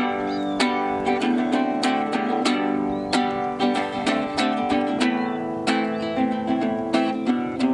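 Nylon-string classical guitar strummed in a steady rhythm, chord after chord with quick strokes.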